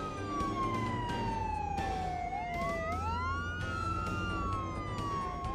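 Ambulance siren wailing in slow, long glides: a tone falls steadily for about two seconds, then a second wail rises and crosses it, over a low steady rumble.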